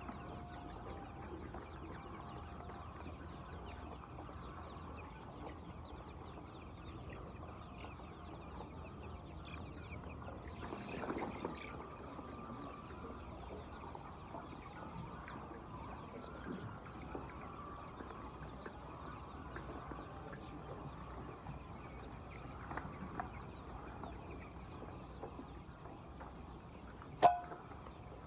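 A flock of laying hens clucking continuously, with a somewhat louder stretch partway through. A single sharp knock stands out near the end.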